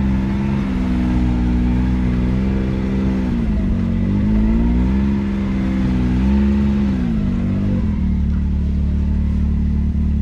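Can-Am Maverick X3 side-by-side's engine under way, its revs rising and falling several times as the throttle is worked, then holding steady near the end.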